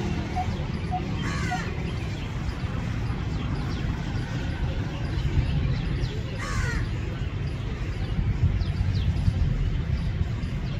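Coppersmith barbet giving its metronomic call, short evenly repeated notes about two a second, which stop about a second and a half in. Another bird gives two descending calls, one about a second and a half in and one near six and a half seconds, over a steady low rumble of background noise.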